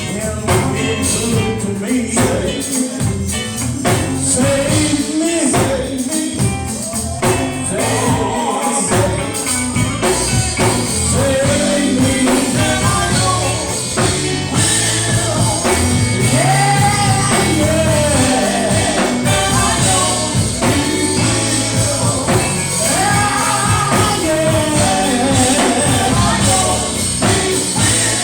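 Live gospel music: voices singing over a full band with a steady beat.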